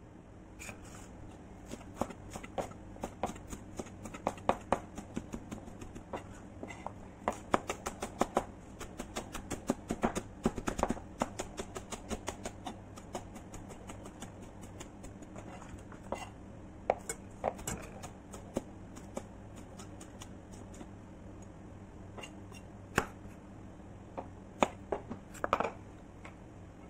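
Chef's knife chopping green onions on a cutting board: quick runs of knife strokes knocking on the board, fastest in the first half, then slower and scattered, over a steady low hum.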